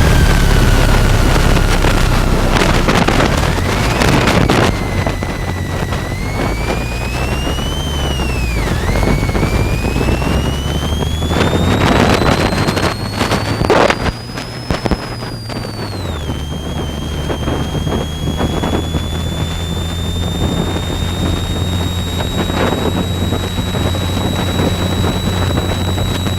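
A vehicle driving, with a high whine that rises and falls in pitch as it changes speed, under a steady low hum and wind buffeting the microphone.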